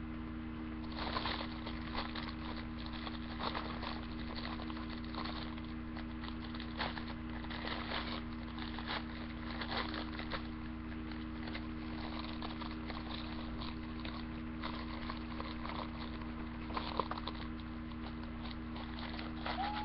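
Squishy toy packaging rustling and crinkling in irregular bursts as the toy is handled and put back into it, over a steady low electrical hum.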